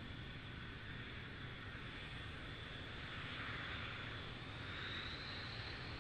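Su-35S fighter's twin AL-41F1S turbofan engines running at low power while it taxis, a steady high whine over a low rumble. The whine rises slightly in pitch and grows a little louder toward the end.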